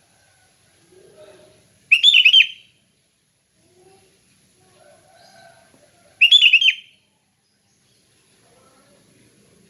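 Sooty-headed bulbul (kutilang) singing its loud, clear 'ngeplong' song: two short phrases about four seconds apart.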